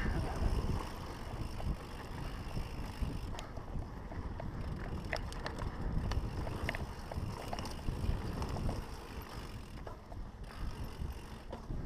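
Mountain bike riding fast downhill on a dirt singletrack, with wind rumbling on the microphone, tyres rolling over dirt, and scattered short rattles and clicks from the bike over rough ground.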